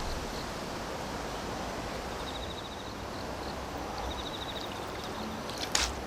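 Outdoor ambience: a steady hiss of wind or water, with a high pulsed insect trill coming and going a few times and a single sharp click near the end.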